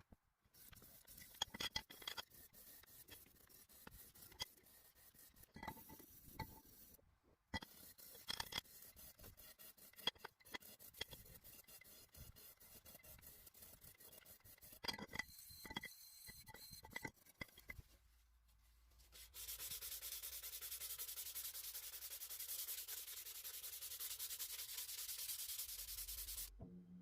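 Irregular hand rubbing and scraping strokes with scattered small clicks, from work on an axe being restored. About nineteen seconds in, this gives way to a steady, even hiss that stops just before the end.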